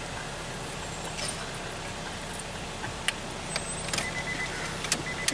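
A few light clicks of keys at the ignition of a 2000 Honda Accord over a steady background, with a faint steady high tone coming in about four seconds in.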